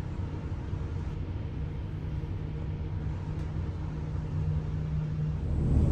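Truck engine idling: a steady low hum. Near the end it gives way to louder engine noise.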